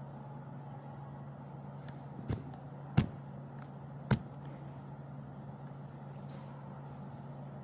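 Steady low hum of a waiting room's room tone, broken by three sharp knocks about two, three and four seconds in. The second and third knocks are the loudest.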